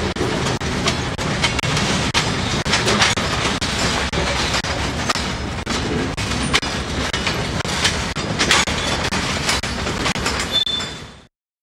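Freight train tank cars rolling past: a steady rumble of steel wheels on rail with repeated clicks as the wheels cross rail joints, fading out quickly near the end.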